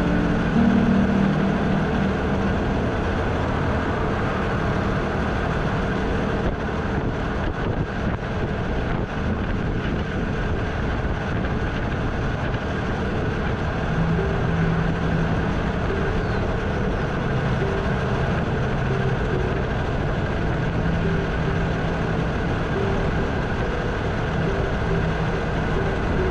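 Motorcycle riding along at a steady pace: engine and road noise holding level without change.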